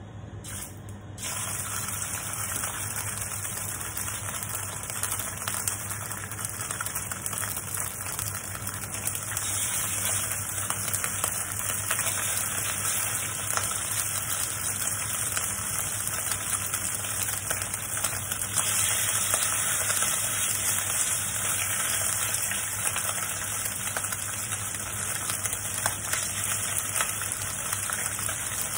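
Pork slices frying in hot oil in a stainless steel wok, a steady sizzle with fine crackles that starts about a second in as the first pieces go into the pan.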